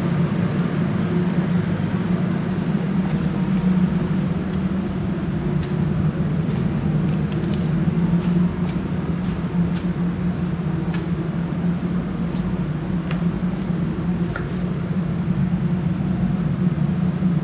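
Scattered gritty footsteps on debris-strewn concrete stairs over a steady, fairly loud low hum.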